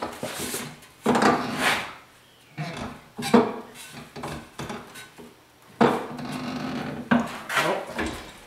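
Thin sheet steel being hand-formed over the clamping bar of a sheet-metal brake, giving a series of irregular metallic clanks, rattles and scrapes with short pauses between them.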